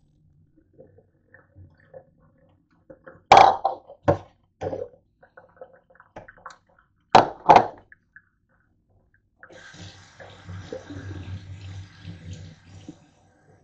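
A few sharp knocks and clanks of dishware in a stainless-steel sink. Then the faucet runs, with water splashing over hands for a few seconds near the end.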